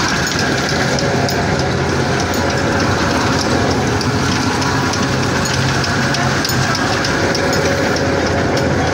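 Vintage threshing machine running, a loud steady mechanical rattle over a constant low hum.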